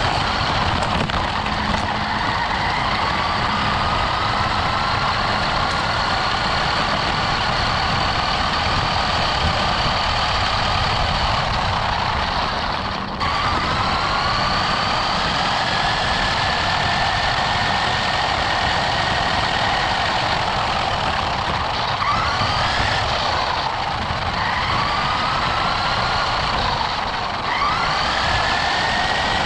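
RC buggy's motor and drivetrain whining, the pitch rising and falling with the throttle. Under it is a steady rumble of the tyres rolling over a rough gravel road. The whine drops out briefly near the middle.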